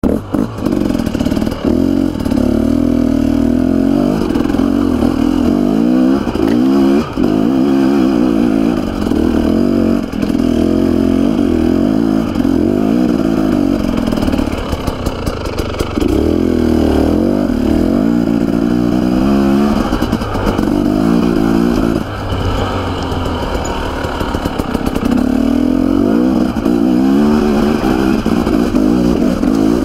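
Dirt bike engine running hard under constantly changing throttle, its pitch rising and falling again and again as it revs up and backs off, with a few short dips where the throttle is closed. The bike is being ridden up a steep, rutted dirt trail, so the engine is under load, with rattling from the bike over the rough ground.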